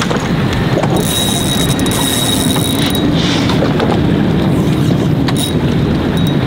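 Spinning reel's drag buzzing as a hooked fish pulls line against a hard-bent rod, starting about a second in, dropping out, and coming back near the end, over steady wind and water noise.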